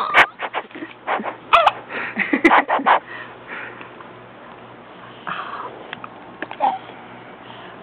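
A baby a few months old giggling in short breathy bursts and squeaks, most of them in the first three seconds, with a few more later on.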